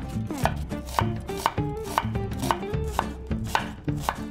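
Chef's knife cutting through a white onion and striking a wooden cutting board in an even rhythm of about two cuts a second.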